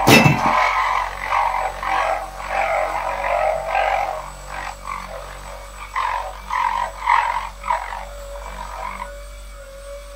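Electric buffer spreading car wax over tiles, its pad rubbing unevenly against the tile surface, with a sharp knock at the start. About nine seconds in the rubbing stops and only the motor's steady tone is left.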